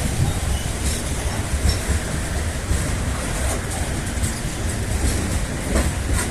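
Freight train loaded with bauxite ore rolling past, its wagons making a steady rumble with scattered clicks from the wheels.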